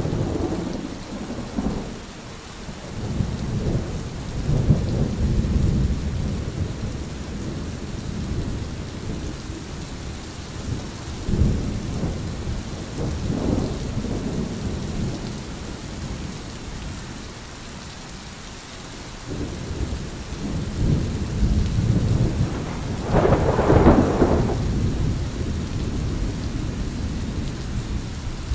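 Thunder rumbling again and again over a steady hiss of rain, the loudest and sharpest peal coming late.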